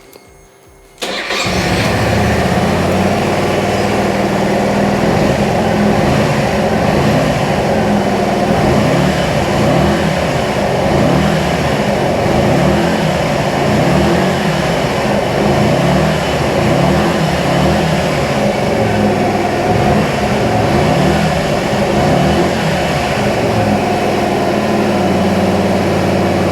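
Honda XL125 Varadero's 125 cc four-stroke V-twin engine starting on the electric starter, catching about a second in, then idling steadily with gentle rises and falls in engine speed.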